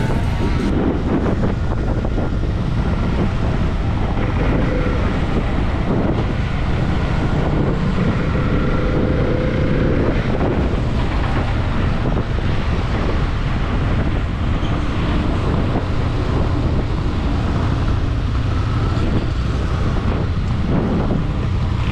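Motorcycle on the move, with wind buffeting the on-bike microphone over steady engine and road noise.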